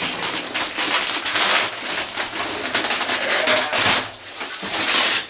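Plastic stretch wrap being peeled and pulled off a cardboard carton, a steady crackling and rustling with many quick crinkles, easing off briefly about four seconds in.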